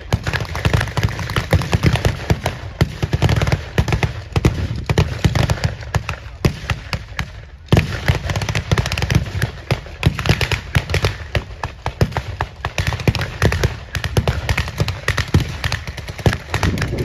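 Dense, rapid small-arms gunfire from a WWII battle re-enactment, rifles and machine guns firing blanks. The shots come many to the second and barely pause, easing briefly about halfway through, over a steady low rumble.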